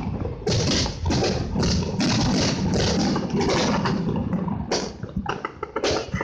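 Fireworks going off in quick succession: a run of loud bangs and crackles about two a second, thinning to scattered sharp pops in the last two seconds.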